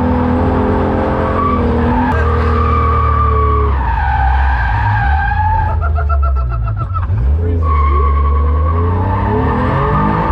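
Car drifting on a skid pad: the engine revs hard while the tires squeal in a long slide. The engine pitch drops about halfway through, stutters briefly, then climbs again near the end.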